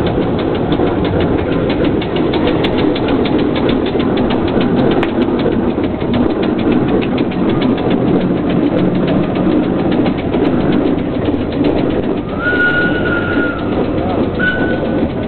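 Steam traction engine driving past with a fast, even clatter that fades over the first several seconds as it moves away. Near the end a short, steady high whistle-like tone sounds twice.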